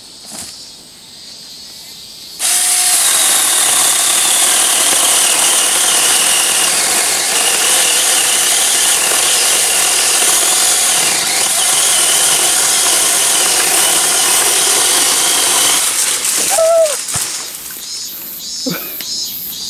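Small handheld electric chainsaw cutting through a dead cherry branch, running steadily from about two seconds in for some fourteen seconds with a wavering high whine, then stopping. Near the end come cracks and crashes as the cut branch falls through the foliage.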